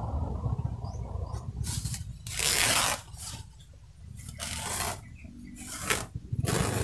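A long knife slicing along the midrib of a fresh banana leaf, cutting the rib away in about five rasping strokes, the loudest a little after two seconds in, with the leaf rustling. A low steady rumble runs underneath.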